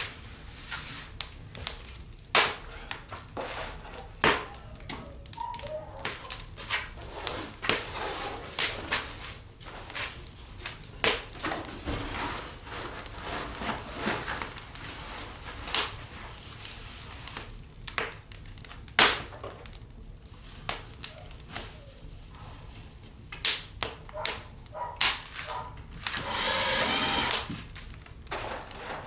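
Irregular knocks, taps and clatter of hand work during drywall installation, with a power tool running in one burst of about a second and a half near the end.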